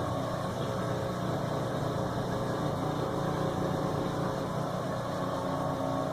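Electrolux LF80 top-loading washing machine in its spin cycle, motor and drum running with a steady hum. It spins without the loud noise it made before the repair, which the owner put down to a worn spin bearing.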